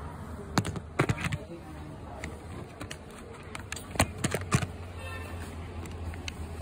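A handful of sharp clicks and knocks: a cluster about a second in and another about four seconds in, over a steady low hum.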